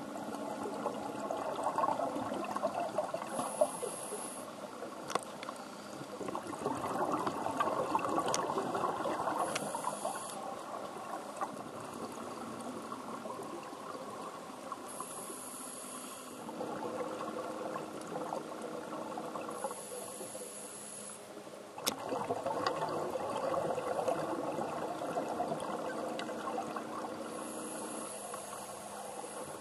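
Scuba diver breathing underwater through a regulator: swells of exhaled bubbles gurgling and crackling every few seconds, with short hisses from the regulator in between.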